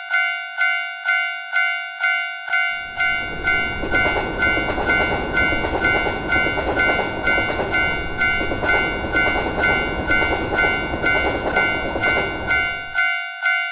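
Japanese railway crossing warning bell ringing its 'kan-kan' about twice a second. From about three seconds in, a train passes over the crossing with a rumbling clatter, which cuts off suddenly near the end while the bell keeps ringing.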